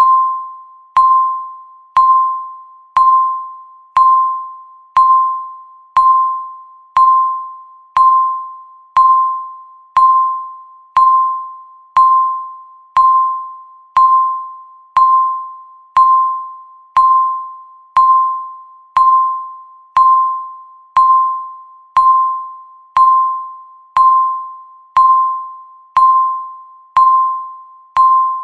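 Countdown timer beep: a single electronic tone struck once every second, each one sharp at the start and dying away before the next, ticking off the seconds.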